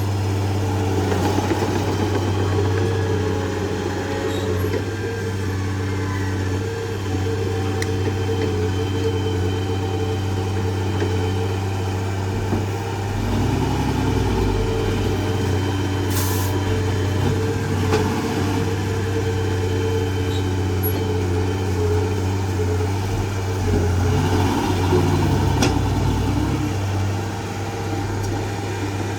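Heavy earthmoving machinery's diesel engine running at a steady speed. The low rumble shifts briefly about halfway through and again near the end.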